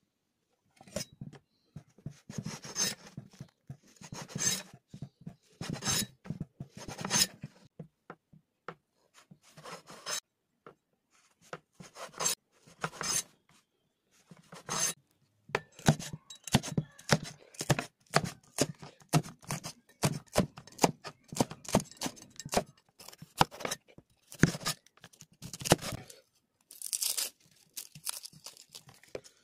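A large kitchen knife cutting through slices of white bread on a wooden chopping board: crisp crunching strokes, which come faster with knocks of the blade on the board through the middle. Near the end, the dry papery skin of a red onion crackles as it is peeled off by hand.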